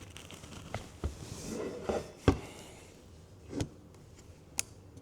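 About six separate clicks and knocks from an AM-15 rifle being handled during reassembly as a takedown pin is pushed and driven home, the loudest a little over two seconds in.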